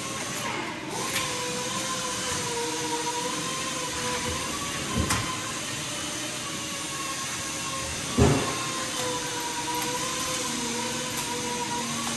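Steady machine drone with a faint, slightly wavering hum, broken by two knocks about five seconds in and, louder, about eight seconds in: the camper awning's metal support leg being walked out and set down on the concrete floor.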